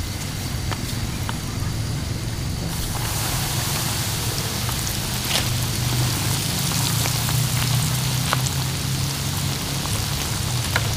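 Oil sizzling and crackling in a frying pan as more food goes in to fry, the sizzle swelling about three seconds in, over a steady low hum.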